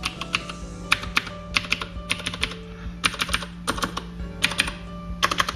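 Typing on a mechanical keyboard with clicky Cherry MX Blue switches, in short irregular bursts of sharp key clicks about every half second to a second. Soft background music plays underneath.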